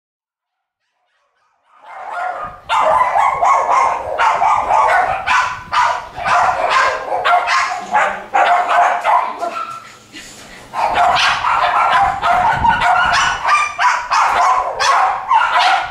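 West Highland White Terrier puppies yapping and barking in a rapid run of short yips, starting about two seconds in, with a brief lull near the ten-second mark.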